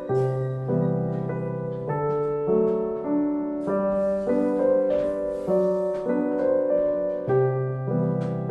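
Background piano music: gentle, sustained chords with a bass note that changes about every second.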